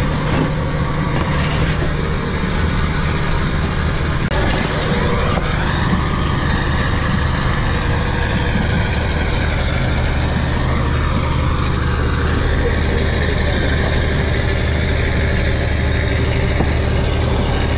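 A mechanised fishing boat's inboard diesel engine running steadily, a loud low hum.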